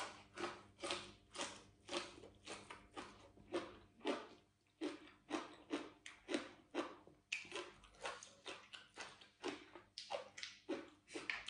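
Close-up mouth sounds of a person chewing crisp raw leafy greens, a steady run of crunchy chews about two a second.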